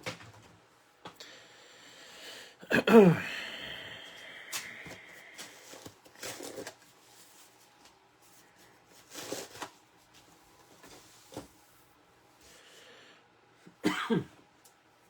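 A person coughing: one loud burst about three seconds in and two quick ones near the end, with small handling noises in between.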